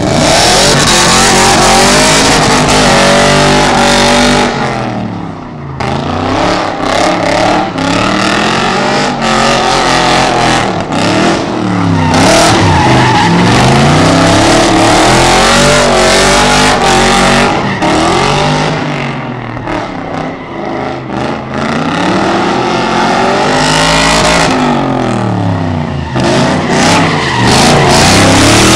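V8 engine of an Opel Commodore drifting in circles, its revs climbing and dropping several times as it holds the slide, over the hiss and squeal of spinning tyres.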